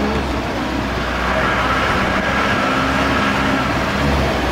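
Steady engine hum and tyre noise of a vehicle driving on an unpaved dirt road, heard from inside the cabin.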